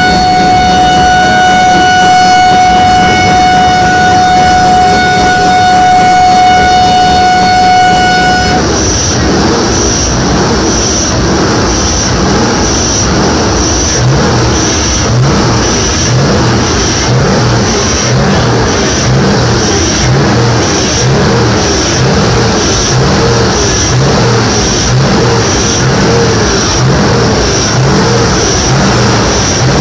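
A truck air horn blows one steady note for about eight seconds and cuts off suddenly. A Scania V8 diesel truck engine is then revved hard over and over, about once a second.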